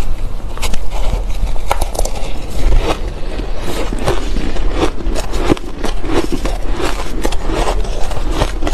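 Close-miked crunching of shaved ice being chewed, mixed with a metal spoon scraping and digging through a bowl of shaved ice: a dense run of crisp, irregular crunches.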